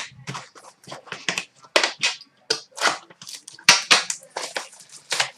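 Trading cards and packaging being handled: a run of irregular, sharp clicks and rustles with no steady rhythm.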